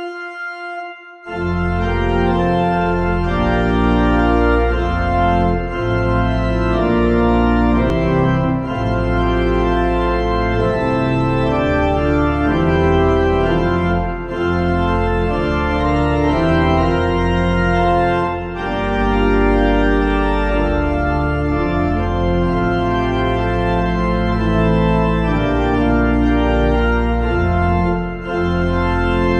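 Organ music: a single held note, then from about a second in full sustained chords over a deep bass, changing every second or two.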